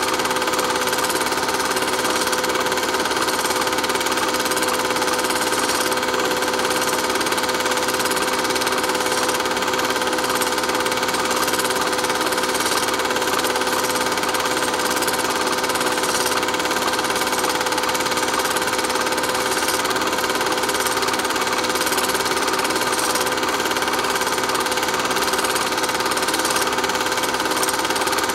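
Steady mechanical hum and fast rattle with constant whining tones over hiss, unchanging throughout.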